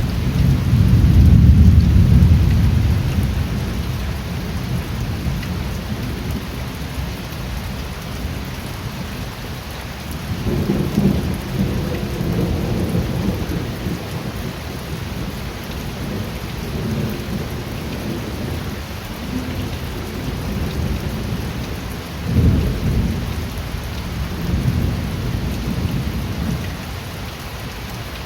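Steady rain falling, with rolling thunder: a loud rumble over the first few seconds that fades out, another about ten seconds in, and a sharper crack of thunder about twenty-two seconds in.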